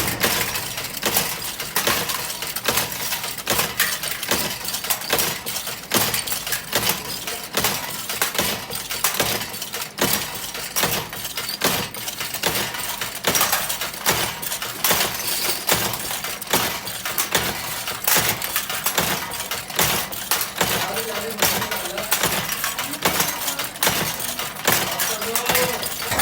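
Dense, continuous clatter of many hard items knocking and clinking against each other, with sharp impacts several times a second.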